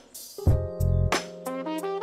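Instrumental background music with a drum beat under held melody notes.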